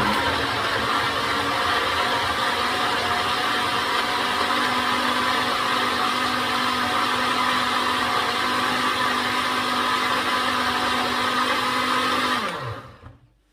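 Blender running steadily at full speed, puréeing a soup of tomatoes, roasted red peppers, onion, vegetable stock and basil. Near the end it is switched off and the motor spins down with a falling hum.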